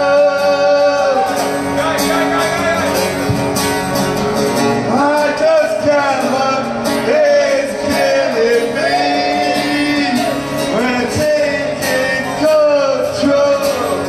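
A man singing a song with acoustic guitar strumming along, with long held notes that bend at the phrase ends.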